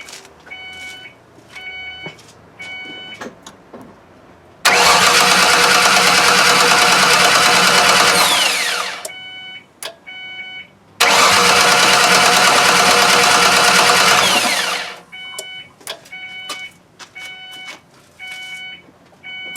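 1992 Mercury Sable's newly fitted starter cranking the engine twice, about four seconds each time, without the engine catching. The starter works, but the engine gets no fuel because the fuel pump wire has been cut. A car's warning chime dings about once a second before, between and after the two cranks.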